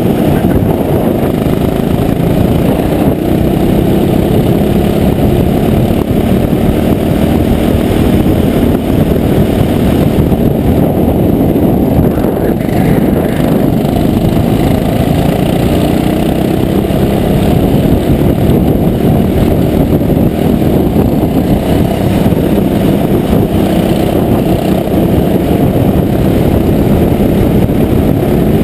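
Go-kart engine heard from onboard, running hard around the track, its revs rising and falling through the corners.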